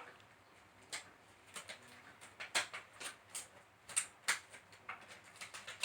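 Irregular light clicks, snaps and rustles of handling, as a disposable face mask and rubber gloves are put on.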